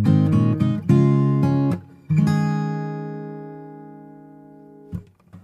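Background music of acoustic guitar strumming chords. About two seconds in, one chord is left to ring and fades slowly over about three seconds, with a short pause near the end before the strumming resumes.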